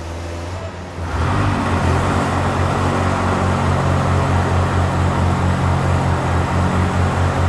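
Zamboni ice resurfacer running. About a second in it grows louder: a rushing noise joins a low engine throb that pulses evenly several times a second.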